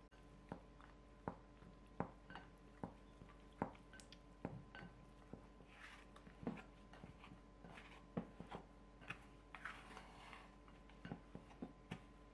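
Faint taps and scrapes of a silicone scraper against a glass mixing bowl, about one or two a second, as flour and liquid are stirred into a shaggy bread dough, with soft wet squishing of the dough between the taps.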